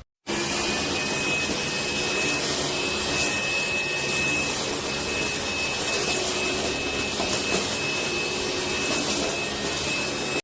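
Tefal X-Nano cordless handstick vacuum cleaner running steadily: a high motor whine over the rush of airflow, starting abruptly with a slight rise in pitch as the motor spins up.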